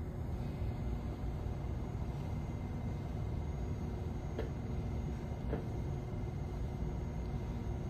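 Metra Electric bilevel electric train standing at the platform, its onboard equipment humming and rumbling steadily. Two sharp clicks come about four and a half and five and a half seconds in.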